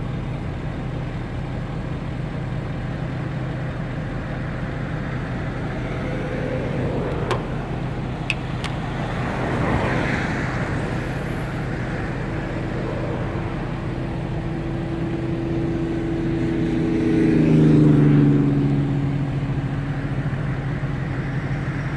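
Road traffic outdoors: steady vehicle noise, with one car passing about ten seconds in and a louder vehicle passing near the end, its pitch dropping as it goes by.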